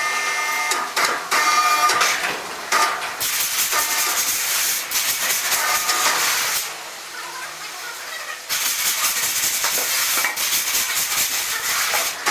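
Sawmill saw cutting through wood: a loud, steady hiss with a high whine, dropping off for about two seconds in the middle before cutting on.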